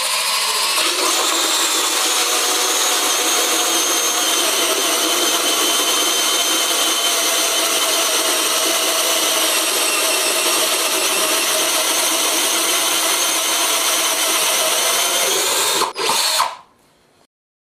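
Cordless drill running a Hole Pro hole cutter through sheet material, a steady high-pitched whine. About 16 seconds in it stops, gives one short final burst, and cuts off.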